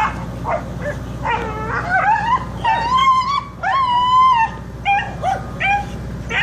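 Dog howling and whining in a string of drawn-out, rising-then-level cries, after a few short yips at the start, over a steady low hum.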